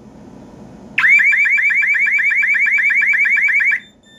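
Ademco Wave 2 alarm siren sounding a loud, fast yelping warble of about ten quick rising sweeps a second. It starts about a second in and cuts off suddenly after nearly three seconds.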